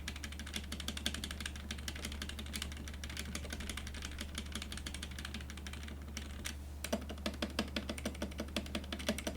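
Stock, unmodified Geek GK61 60% mechanical keyboard with Gateron Yellow linear switches being typed on quickly, giving a dense run of key clicks. After a brief pause about two-thirds of the way through, the strokes turn slower and evenly spaced, about three a second, with a fuller low sound. A steady low hum runs underneath.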